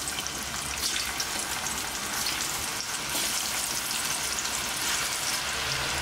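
Marinated chicken pieces sizzling and crackling as they deep-fry in hot oil, with more pieces dropped in one by one so the sizzle builds slightly.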